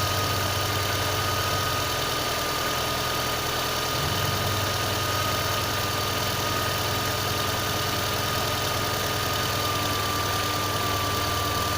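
VAZ-2112 engine idling from cold with a knock in the engine, the knock whose cause is being sought. A steady high-pitched whine runs alongside the engine sound.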